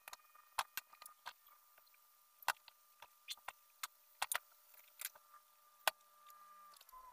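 Irregular sharp clicks and taps of stiff black cage rods knocking together and against pliers as a bird-cage frame is handled and bent, about a dozen in seven seconds. A faint steady high tone sounds underneath and dips in pitch near the end.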